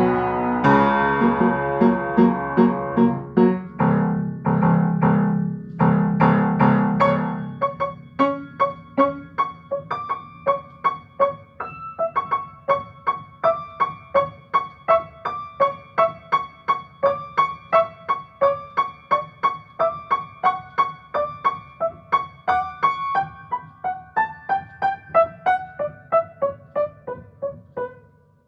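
Solo piano improvisation: full, loud chords for the first several seconds, then a steady run of repeated single notes, about three a second, that steps downward toward the end and fades out.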